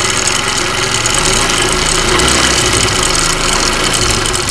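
Motorcycle engine idling with a steady, rapid metallic clatter from a slapping timing chain: its tensioner guide strip is worn, so the chain strikes against the cylinder.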